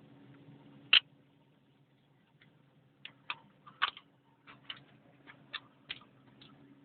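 One sharp click about a second in, then a run of about a dozen lighter clicks and taps, as metal parts of a hydraulic excavator drive motor are handled.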